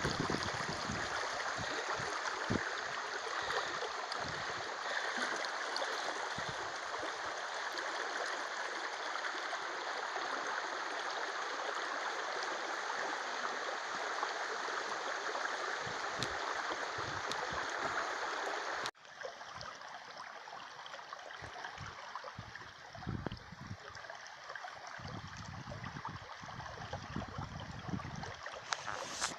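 Shallow river rushing over a riffle, a steady hiss of running water. About two-thirds of the way through it cuts abruptly to a quieter, softer flow, with a few low thumps near the end.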